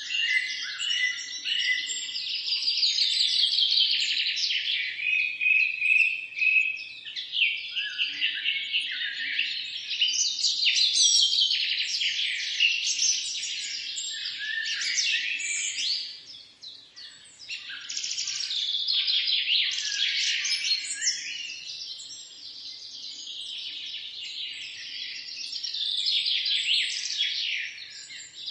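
Several birds chirping and singing continuously, with many overlapping quick trills and calls, and a short lull about sixteen seconds in.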